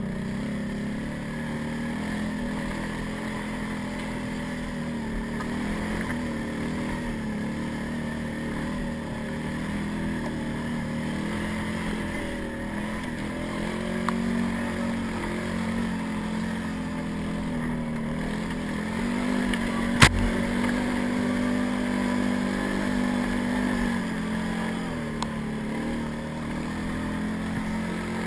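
Can-Am ATV's Rotax 800 V-twin engine running steadily while riding, its note rising and dipping a little. A single sharp knock about twenty seconds in.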